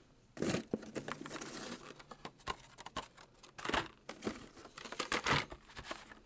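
Plastic blister packs on cardboard cards being handled: irregular crinkling and rustling with sharp clicks as the packaged die-cast toy cars are picked up and moved about.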